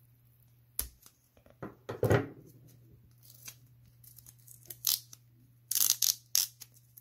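Tape being torn and peeled off a plastic trading-card sleeve, in short crinkly tearing bursts that are loudest near the end. A sharp handling knock comes about two seconds in.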